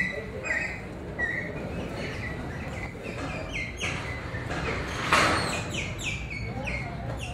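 Small birds chirping over and over in short, quick notes, with a brief loud rush of noise about five seconds in.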